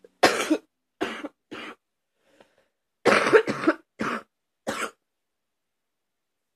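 A person's deep cough, in two bouts: three coughs, then after a pause of about a second, a run of about four more.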